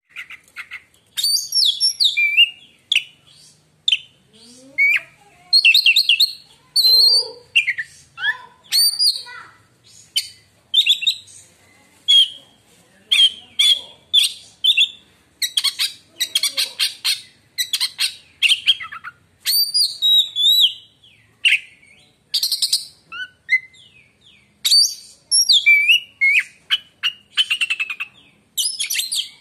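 Oriental magpie-robin (kacer) singing: a loud, varied song of short phrases about a second apart, mixing whistled glides with fast rattling notes.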